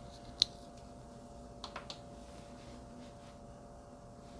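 Quiet room tone with a faint steady hum, broken by one sharp click about half a second in and two or three softer clicks near the middle.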